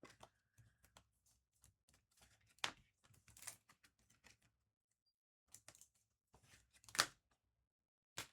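Sparse light clicks and rustles from small handling work, with a few sharper taps, the loudest about seven seconds in.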